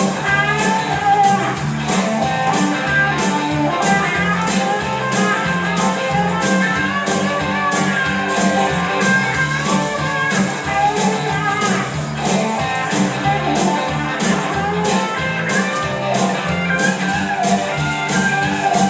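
Music: guitar over a steady beat, with no singing.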